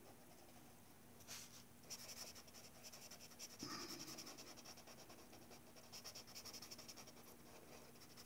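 Faint, rapid scratching of a red pencil colouring in on paper, stroke after stroke.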